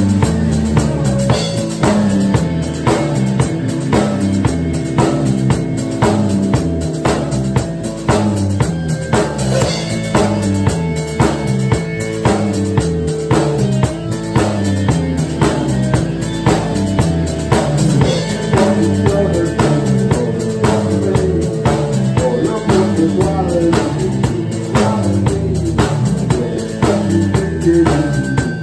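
A rock band playing live in a rehearsal room: electric guitars over a drum kit keeping a steady beat.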